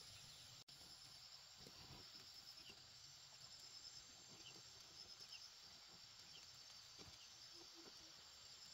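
Faint insects chirping in a steady high pulsing trill, with a few soft rustles.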